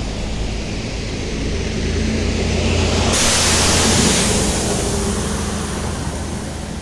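A vehicle driving past on the road, its tyre and engine noise swelling to a peak about halfway through and then fading, over a steady low rumble.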